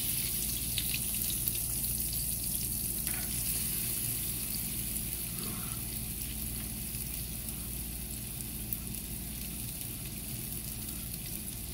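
Chopped white onion sizzling in melted butter in a small frying pan: a steady frying hiss that eases slightly, with a few faint ticks as pieces drop in.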